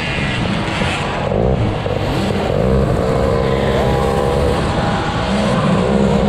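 50cc two-stroke youth motocross bike engines revving hard under race throttle, the pitch climbing and dropping again several times as the rider shifts and gets on and off the gas.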